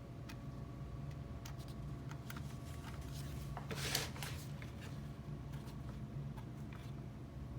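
Small clicks and rustles of hands fitting a cable connector and tightening its thumb screws, with a brief louder scrape about four seconds in, over a steady low hum.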